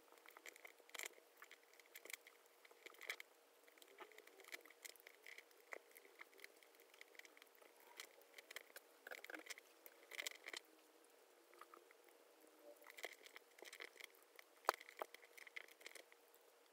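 Faint crinkling, tapping and creasing of origami paper folded by hand, in quick irregular bursts, with one sharper click near the end.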